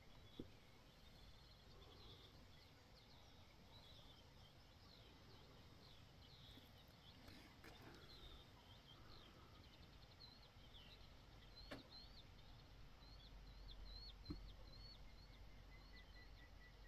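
Faint birdsong: short high notes from small birds, ending in a run of evenly repeated notes about three a second, over a low steady rumble. Three faint sharp clicks stand out, one near the start and two late on.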